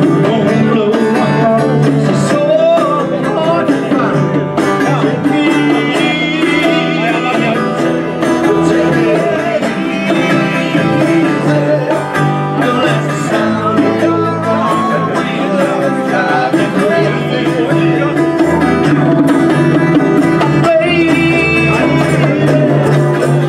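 A live band playing electric guitar and bass, with a male singer on microphone.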